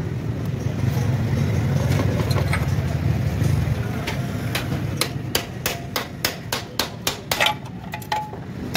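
A quick run of about a dozen hammer taps on the metal engine casing of a 70cc motorcycle engine in the second half, about four a second, knocking the right-side crankcase cover loose. A steady low rumble underlies the first half.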